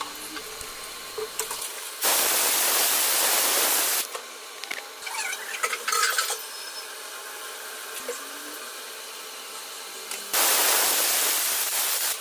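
Aluminium stovetop pressure cooker whistling twice: the weighted valve lifts and a loud, steady jet of steam hisses out for two to three seconds each time, the sign that the cooker is at full pressure. Between the two whistles there is a lower steady hiss with some light clinking about halfway.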